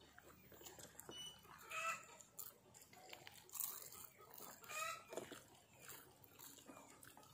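Chickens clucking faintly, a few short calls spread through, over soft eating sounds.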